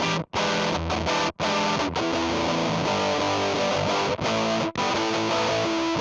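Epiphone SG electric guitar played through a Fuzz Factory fuzz pedal into a clean amp simulation. It plays a distorted, fuzzy riff of notes and chords, cutting out suddenly to silence for an instant a couple of times.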